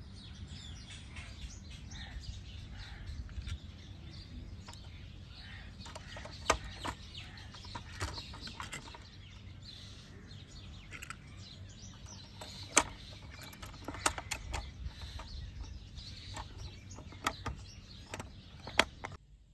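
Garden ambience with birds chirping and a low steady rumble, broken by a handful of sharp clicks and taps from toy trucks being handled on a wooden deck, including the plastic rear door of a toy container trailer.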